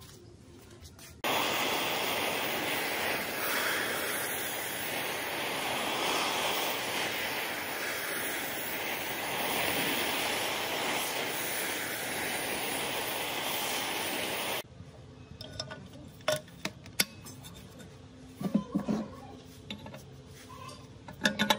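Gas torch flame hissing steadily as it heats a rusty cast-iron gearbox housing; it starts and stops abruptly. Afterwards come scattered sharp metal clicks and knocks as hand tools work a gear and shaft inside the housing.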